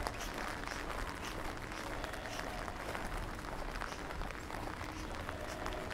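Steady rain pattering, a dense even hiss full of small drop ticks.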